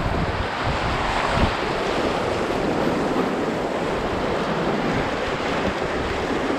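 Whitewater rapids rushing steadily around a canoe running through them, with wind buffeting the microphone in low gusts during the first second or so.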